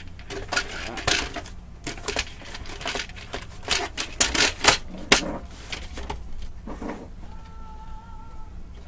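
Plastic housing and frame parts of a Brother DCP-T710W inkjet printer being handled and fitted by hand: a quick run of clicks, knocks and rattles, loudest about four to five seconds in. Near the end a short steady tone sounds in the background for about a second.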